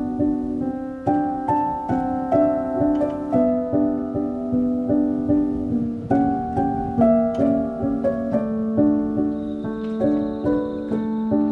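Instrumental background music: a calm melody of separate struck notes over held chords.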